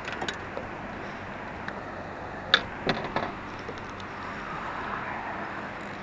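Steady rush of wind and river water, with a few sharp knocks and clicks, the loudest about two and a half seconds in.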